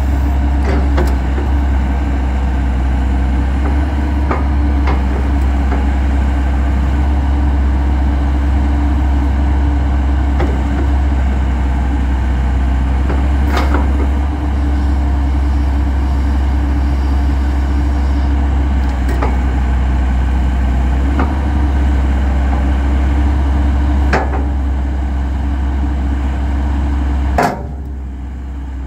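Kobelco SK210LC-9 hydraulic excavator's diesel engine running steadily while the boom, arm and grapple are worked, with a sharp clunk every few seconds from the grapple and linkage. About a second before the end the sound drops suddenly quieter.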